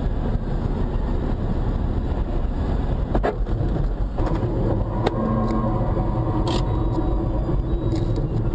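Car driving, heard from inside the vehicle as on a dash-cam: a steady low engine and road rumble, with a few short knocks about three, five and six and a half seconds in.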